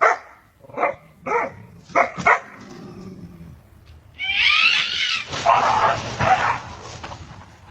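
A dog barking sharply about five times, followed by a louder, longer stretch of noisy commotion with wavering cries.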